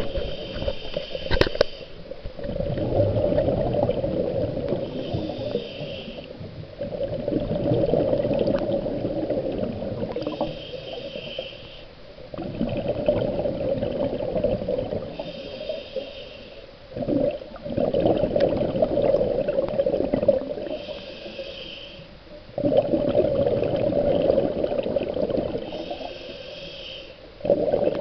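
Scuba diver breathing through a regulator underwater: a short hissing inhale about every five seconds, six in all, each followed by a longer, lower rush of exhaled bubbles.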